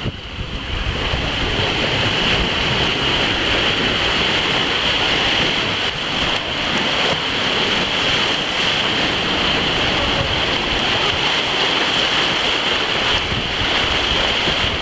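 Steady rush of churning whitewater in a water-park river rapids, close to the microphone.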